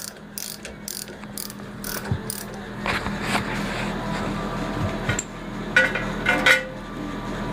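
Ratchet wrench clicking in quick, even strokes, about five a second, for the first second or so. A few scattered metal clinks and knocks follow as parts are handled, over a steady low hum.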